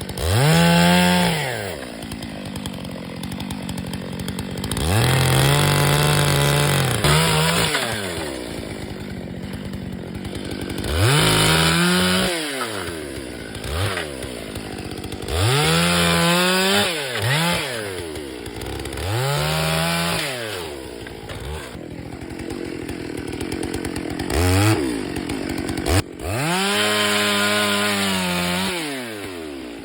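Stihl chainsaw revving up to full speed and dropping back to idle again and again as it cuts through firewood logs, each cut lasting one to three seconds.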